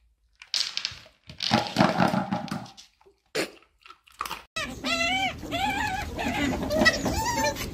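A dog's plastic slow-feeder bowl clattering on a wooden floor, with crunching and scattering kibble and a couple of sharp knocks. A little past halfway this gives way to an Asian small-clawed otter's high, squeaky chirps, repeated quickly and bending up and down in pitch.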